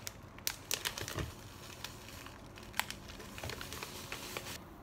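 Clear plastic bag of flour crinkling as hands handle it and open it, with a quick run of sharp crackles in the first second or so, then scattered single ones.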